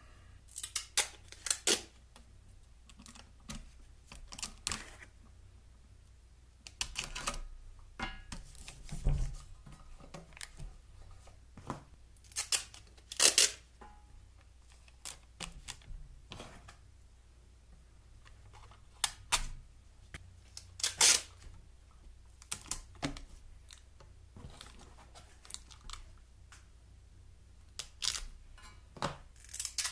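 Foil tape being handled and pressed over the ports of a Jeep exhaust manifold: irregular sharp crackles and clicks with quiet gaps between.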